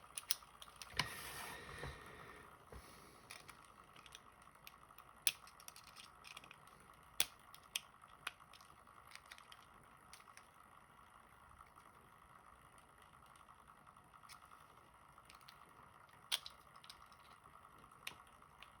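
Small screwdriver working at the retaining snap ring on a pin-tumbler lock's plug, trying to pry it off: a brief scrape about a second in, then sparse sharp metal-on-metal clicks every second or few.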